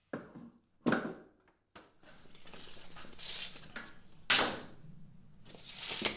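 A steel tape measure being handled against a plywood boat hull: a few knocks of hands and tape on the panel, the blade rasping out, then a rising rush as it winds back in.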